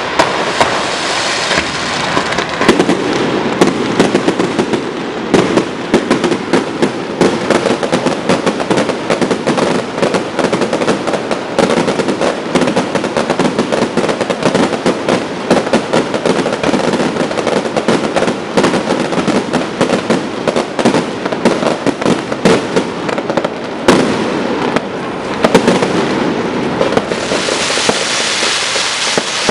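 A fireworks display going off continuously, with rapid bangs and crackling over the hiss of spark fountains. The hiss is strongest near the start and again in the last few seconds.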